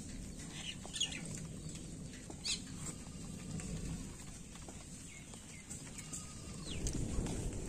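Small birds chirping now and then, a few short falling chirps, over a low steady outdoor rumble that grows near the end.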